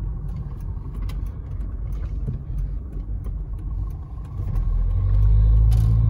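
Car driving, heard from inside the cabin: a steady low rumble of engine and tyres that grows louder about five seconds in.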